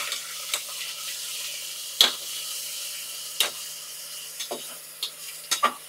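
Onions and ginger-garlic paste sizzling in hot mustard oil in a pressure cooker, with a steady hiss. A metal spatula stirring them knocks and scrapes against the pot now and then, several times in quick succession near the end.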